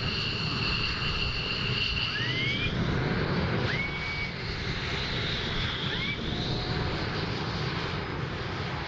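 USAF F-16C jet engine noise from the airfield: a steady rumble with a high turbine whine that stops about a third of the way through, the rumble then carrying on. A few short rising whistles sound over it.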